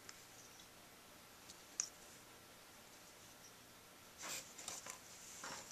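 Faint clicks, then short scraping rubs about four seconds in, from a small stick spreading two-part epoxy over the metal band on a Lucite sax mouthpiece shank as the mouthpiece is handled in the fingers.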